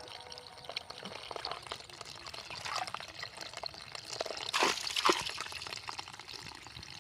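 Water splashing and trickling in small, scattered splashes, with two louder splashes close together about two-thirds of the way through.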